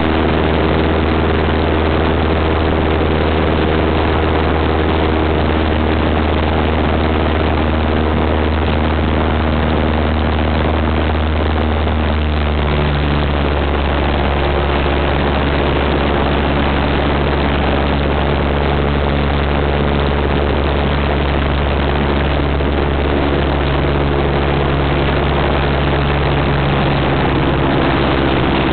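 Cessna 172 Skyhawk floatplane's piston engine and propeller running steadily in flight, heard inside the cabin with a loud wash of air noise. The engine's tone shifts about twelve seconds in.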